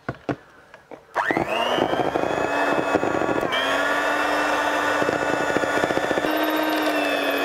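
Electric hand mixer switched on about a second in, spinning up to a steady motor whine as its twin beaters whip cream in a bowl, with a brief dip in pitch partway through. A couple of clicks come before it starts.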